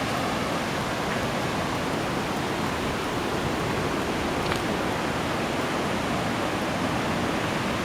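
Waterfall rushing: a steady, even roar of falling water that holds at one level throughout.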